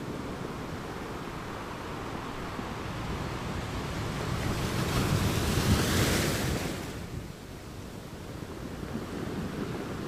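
Wind rushing steadily, swelling into a strong gust about five seconds in that dies away abruptly near seven seconds.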